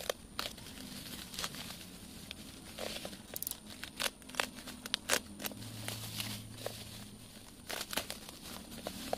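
A utility knife slits the packing tape and plastic wrap on a parcel while the plastic and bubble wrap are pulled apart, with irregular sharp crackles and scratchy crinkling.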